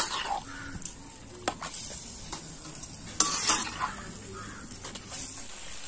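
Metal ladle scraping and stirring chicken pieces in masala in a kadai, with the masala sizzling throughout. There are a few scrapes against the pan, the loudest about three seconds in.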